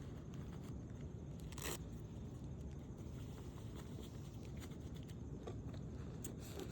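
Faint steady outdoor background noise with a single sharp click a little under two seconds in and a few light ticks near the end.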